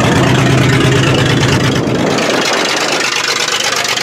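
Demolition derby car's engine running as it drives slowly past close by through the mud, its sound dropping off about two seconds in as the car moves away.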